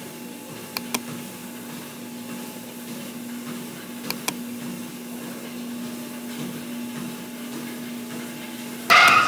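Gym treadmill running: a steady motor hum under belt noise, with two pairs of light clicks. Just before the end a sudden, much louder sound with higher tones cuts in.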